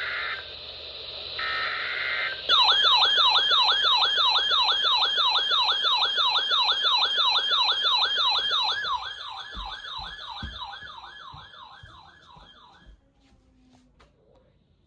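Two short bursts of the alert's data tones sound, then a fast warbling electronic siren starts about two and a half seconds in. The siren sweeps up and down about two and a half times a second, fades out over several seconds and stops near the end. A few low thumps come while it fades.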